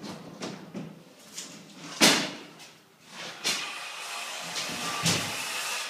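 Footsteps and knocks of someone walking over a debris-strewn floor, a string of sharp thumps with the loudest about two seconds in, then a steady scraping rustle near the end.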